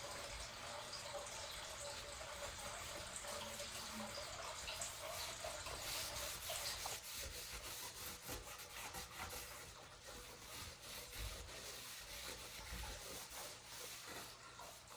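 A cloth rubbing over the body of an antique copper fire extinguisher, a continuous scratchy rubbing.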